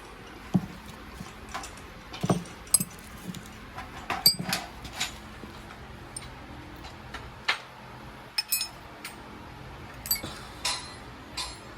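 Light metallic clinks, taps and rattles of small metal parts being handled, irregular and scattered, a dozen or so, some with a brief bright ring.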